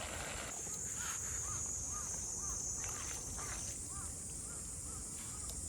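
Short chirping animal calls, repeated about twice a second, over a steady high-pitched buzz and a low rumble.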